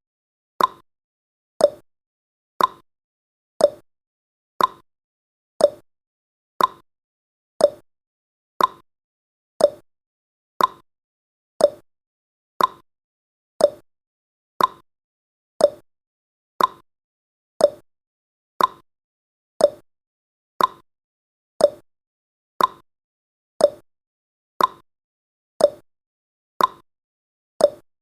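Clock-tick sound effect of a countdown timer: a sharp tick once a second, alternating between a higher and a lower pitch like a tick-tock.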